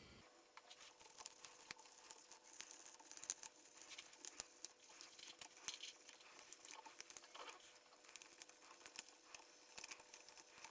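Faint, irregular small clicks and rubbing as a damp cloth on a fingertip wipes the plastic keys of a portable Bluetooth keyboard one at a time, pressing each key down.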